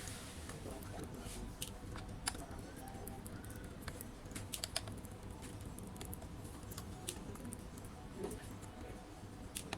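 Laptop keyboard keys being pressed, scattered single clicks at an uneven pace with a small cluster near the middle.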